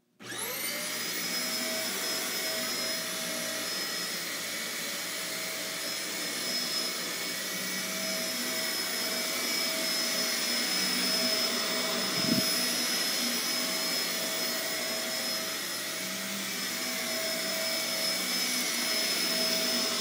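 Shark Navigator Swivel upright vacuum cleaner switched on. Its motor whines up to speed within about a second, then runs steadily at a high whine as it is pushed over carpet.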